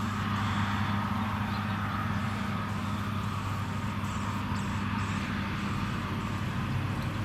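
A steady low engine-like hum, with faint, short high-pitched chirps every second or so.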